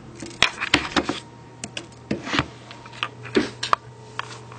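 Irregular light clicks and taps, about a dozen, from a small screwdriver and tiny screws being handled against a BlackBerry Curve 9320's plastic housing during reassembly.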